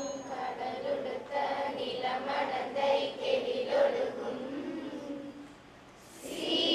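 Three girls singing a slow melody together in unison into a microphone. The singing drops away briefly about five seconds in, then comes back louder near the end.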